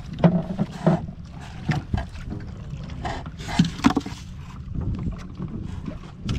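Irregular knocks and clatter over a steady low rumble of water and wind, typical of handling a small fishing boat on the water.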